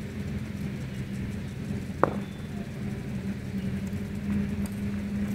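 A steady low mechanical hum, like an engine running, with one sharp knock about two seconds in.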